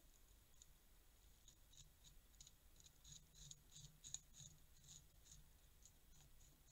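Eurasian beavers feeding: faint, irregular crunching clicks of gnawing and chewing, a few a second, busiest around the middle.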